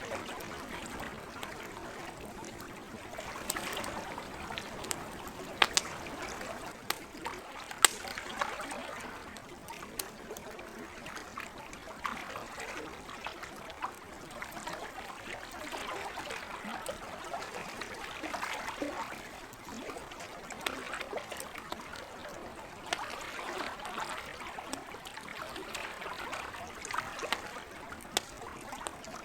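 Campfire crackling, with scattered sharp pops, the loudest two about six and eight seconds in, over the gentle splashing and trickling of lake water that swells and fades every few seconds.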